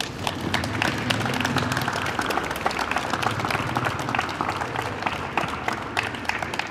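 Audience applauding: many irregular hand claps, thinning out slightly near the end.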